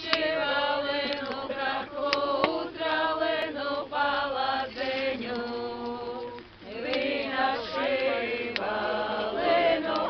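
A group of voices singing an unaccompanied Latvian folk song in a chant-like style, with long held notes and a short break between phrases about six seconds in.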